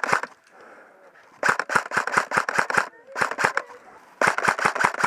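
Airsoft electric rifle, an LCT RK104, firing three bursts of rapid shots, the first the longest and the last near the end.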